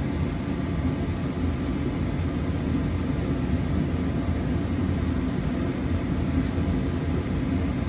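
A steady low rumble with no clear events, running without change.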